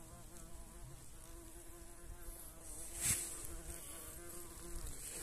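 Wasps buzzing on and around their large nest built inside an old beehive: a steady, slightly wavering hum, with one brief knock about three seconds in.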